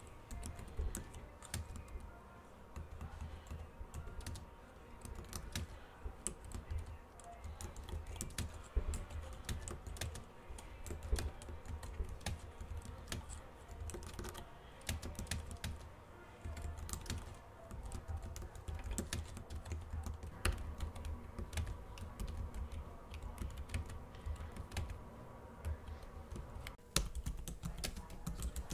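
Quick, irregular key clicks from fast typing on a pink wireless keyboard with round keycaps, set straight on a wooden table without a noise-reduction pad. A low hum from the home heating runs underneath.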